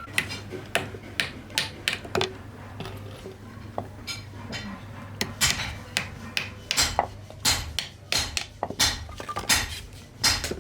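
Hand hammer tapping in saddle-making work: irregular sharp knocks, coming faster and louder in the second half, over a low steady hum.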